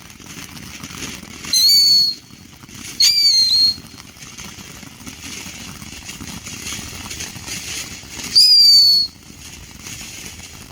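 Killer bee whistling fireworks going off: three loud, shrill whistles of about half a second each, the first two a second and a half apart and the third about five seconds later, each dipping slightly in pitch as it ends.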